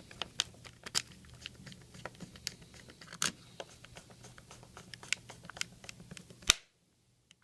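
Hands handling a small plastic device, making irregular light clicks and rustles over a faint steady hum, with one sharp loud click near the end before the sound cuts off.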